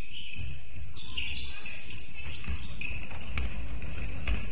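A basketball bouncing on the court during play: a series of dull thuds, with a few sharp knocks and higher-pitched squeaks or voices coming and going.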